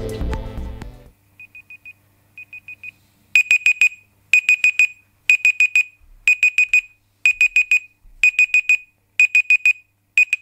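Smartphone clock-app countdown timer alarm going off as the five-minute timer runs out: groups of four quick high beeps, about once a second. The first couple of groups are faint, then the beeping gets louder, and it stops near the end.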